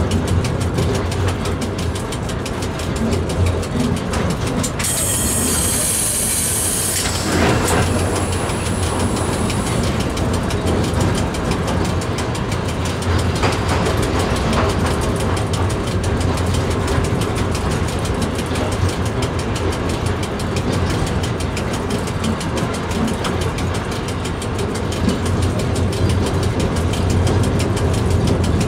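Train running through a railway tunnel, heard from on board: a steady rumble of wheels on rail with a deep hum. A high squeal cuts in about five seconds in and lasts some two seconds, followed by a fainter high whine for a couple of seconds.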